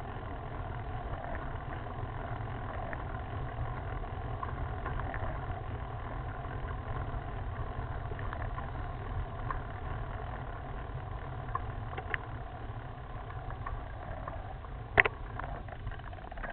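Steady low rumble of wind and road noise on a camera fixed to a road bike's handlebar during a climb. Scattered small clicks and rattles come from the bike, and there is one sharp click about fifteen seconds in.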